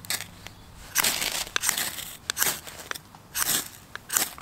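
Steel knife spine scraped hard down a ferrocerium rod, throwing sparks into wood-shaving tinder to light a fire: a series of short, sharp rasps, about one a second.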